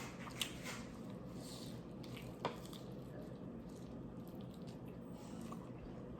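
Soft, wet chewing and squishing of a birria taco dipped in its consommé, with a couple of small clicks.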